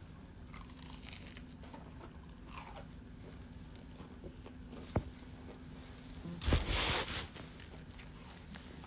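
A person chewing and biting food close to the microphone, with faint crunches. There is a sharp click about five seconds in and a louder rustling crunch lasting under a second about six and a half seconds in.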